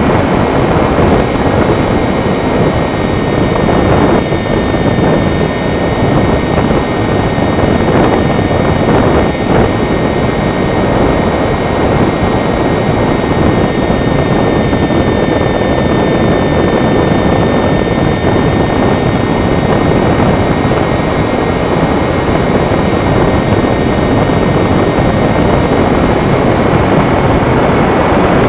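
Onboard sound of a foam HobbyKing Fox RC model plane in powered flight. Its electric motor and propeller give a steady, high whine under heavy wind noise on the onboard camera's microphone.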